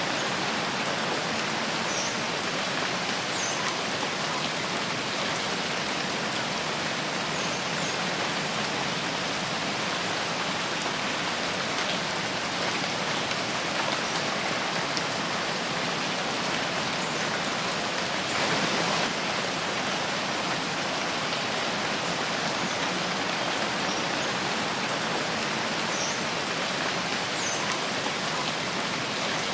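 Steady rain falling in a forest, an even, dense patter on leaves and ground, with a brief heavier swell a little past the middle.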